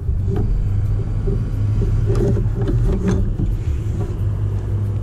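Loud steady low rumble, with a few light knocks and rattles about two and three seconds in.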